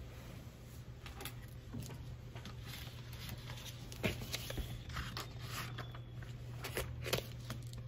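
Close handling noise as sheets of lined notebook paper and a plastic folder are moved and rustled in front of the phone's microphone, with sharper clicks about four and about seven seconds in. A steady low hum runs underneath.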